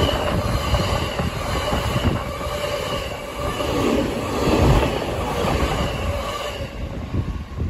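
JR East E231 series 1000 electric commuter train running past close by, its wheels and bogies rumbling on the rails, with a faint high tone above the rumble. The noise falls away near the end as the last car goes by.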